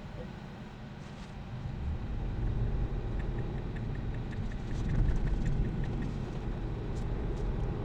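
Low road and tyre rumble inside a Tesla Model 3's cabin, growing louder about a second and a half in as the car gets moving. From about three seconds in, a run of quick soft ticks from the turn-signal indicator lasts a few seconds; the self-driving system is switching the blinker on for a lane change.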